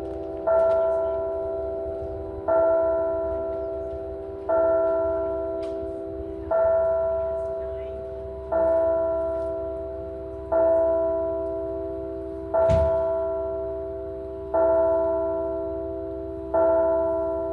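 A church bell tolling the noon hour: the same single bell note struck every two seconds, nine strokes, each one ringing on until the next. A short thump is heard about two-thirds of the way through.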